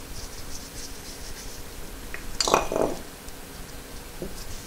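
Soft handling sounds of nitrile-gloved hands oiling and fitting rubber O-rings on an aluminium water pump housing, with one brief louder rub about halfway through. A faint steady hum runs underneath.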